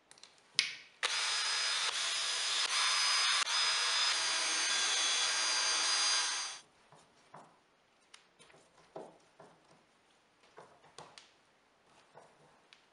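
Cordless drill running a countersink bit into plywood: a steady whine and cutting noise for about five and a half seconds that stops abruptly. A sharp click comes just before it starts, and light clicks and taps follow afterwards.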